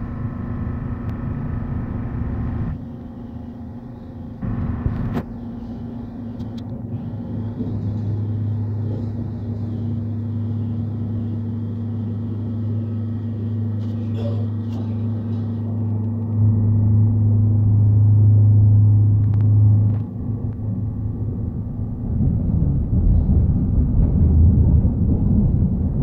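Electric commuter train running, heard from inside the passenger car: a steady low rumble of the wheels and running gear. A low steady hum joins in, grows louder and cuts off suddenly about twenty seconds in, and the rumble gets heavier near the end.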